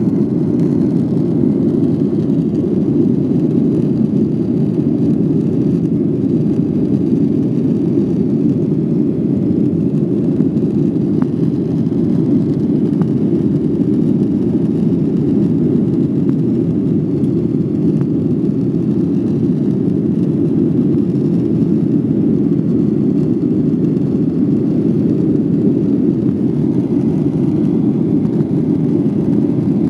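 Steady cabin noise of a jet airliner climbing after takeoff: an even, low rumble of the engines and rushing air, heard from inside the cabin.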